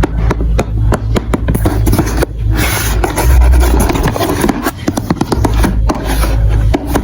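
Marbles running through a marble run built from building blocks: a fast patter of small clicks and clacks, then from about two seconds in a steadier rolling, scraping sound with a low rumble.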